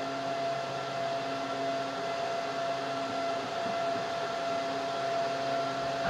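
Steady hiss with a faint steady whine from the speaker of an Icom ID-5100 FM transceiver, with no voice on the channel.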